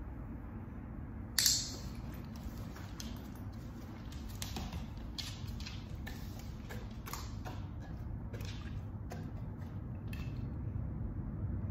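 Light handling noises: one sharp click about a second and a half in, then scattered soft ticks and rustles over a steady low hum.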